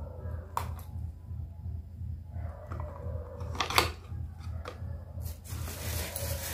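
Medicine bottles and packets being handled and put down: a few knocks and taps, the loudest a little past halfway, over a steady low hum.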